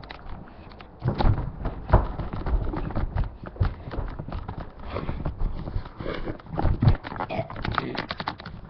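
Irregular taps, clicks and thumps, starting about a second in and continuing unevenly, with no steady rhythm.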